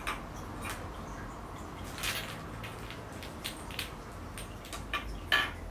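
Small clear plastic balls being set down one by one on a wooden tabletop: a series of light clicks and knocks, with a short plastic-bag crinkle about two seconds in and the sharpest knock near the end.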